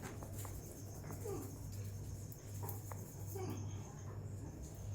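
Faint voices in the background and a few soft clicks over a steady low hum.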